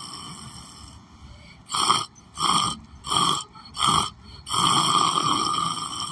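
A person snoring, with four short loud snorts in quick succession followed by a longer snore.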